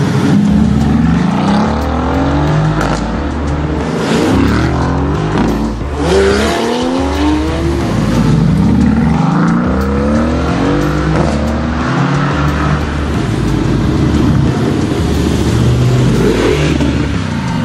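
Mercedes-AMG GT's twin-turbo V8 accelerating hard, its pitch climbing and dropping back again and again as it pulls through the gears, over a steady pulsing bass line of music.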